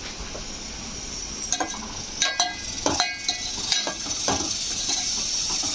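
Onions, chillies and spices sizzling steadily in hot oil for a tempering. A metal spoon stirring them clinks and scrapes against the metal pot several times.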